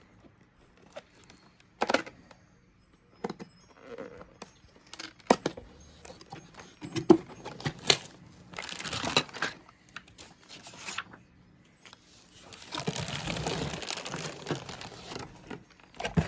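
A marble run toy's box being opened and unpacked: scattered knocks and clicks of cardboard and plastic pieces, then longer stretches of crinkling and tearing of packaging about nine seconds in and again from about thirteen seconds.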